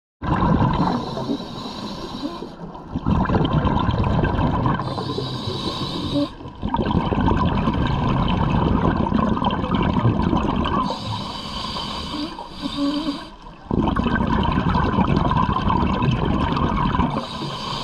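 Scuba diver breathing through a regulator underwater: hissing breaths and bubbling exhalations in a slow, repeating cycle.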